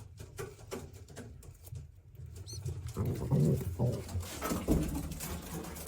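Pigeons cooing in the loft, louder from about halfway through, with light rustling and tapping of birds moving in the nest boxes and a brief high peep.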